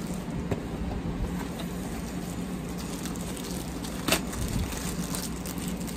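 Plastic packaging rustling as a plastic-wrapped rolled diamond painting canvas is slid out of its bag across a table, with a light knock about four seconds in.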